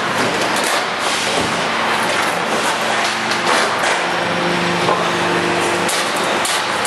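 Steady, loud running noise of a hydraulic press working sheet-metal trays, with scattered clicks and clanks of metal as the trays are handled and a low hum underneath.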